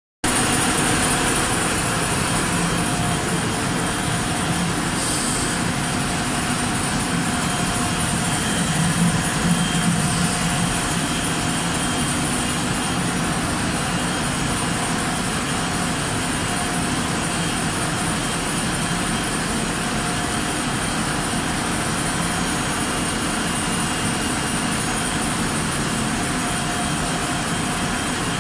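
Steady running noise of dairy processing plant machinery: a constant rushing drone with a couple of faint steady hum tones under it.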